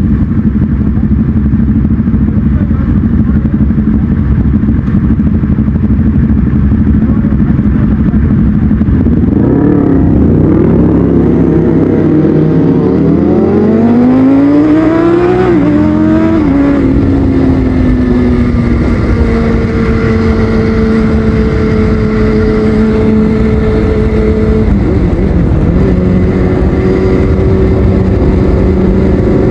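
Kawasaki ZX6R inline-four sport bike with a Yoshimura exhaust, running steadily and then accelerating hard about a third of the way in. The revs climb and drop twice at the upshifts before it settles back into steady cruising.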